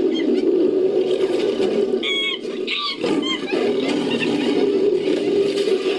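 Designed ape-like monster vocalization: a continuous rough, growling roar. It is broken about two seconds in by a few short, high-pitched shrieks, as if layered from primate and monster recordings.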